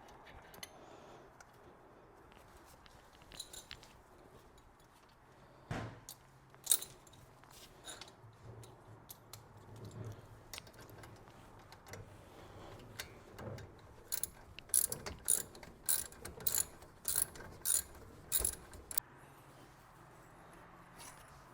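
Ratchet wrench working the 12 mm caliper bolt on the front brake: a few scattered clicks, then a run of sharp clicking strokes, about two a second, in the second half as the bolt is undone to free the caliper.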